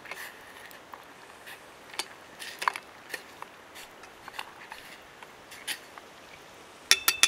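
Metal spoon stirring noodles in a small metal saucepan, with light scattered clinks and scrapes. Near the end come a few quick, louder metallic clinks that ring briefly.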